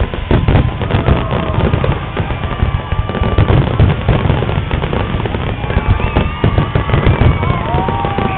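Large fireworks display: a rapid, continuous string of bangs and deep booms, with several held whistling tones in the second half. The recording is dull and rough, as from a camera with poor sound.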